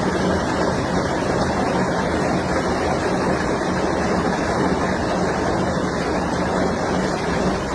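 Steady, loud rush of storm wind, with wind buffeting the microphone.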